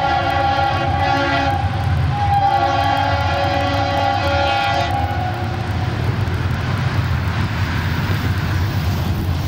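Approaching Union Pacific diesel locomotive's air horn sounding: one blast ends about a second and a half in, and a second long blast follows until about five seconds in. Under it runs the low rumble of the diesel engine, and after the horn stops the noise of the oncoming train grows.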